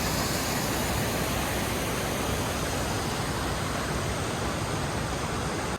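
Mountain creek water rushing in a steady roar.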